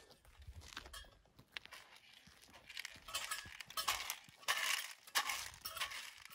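Footsteps crunching at a walking pace, a crunch about every half second, strongest in the second half.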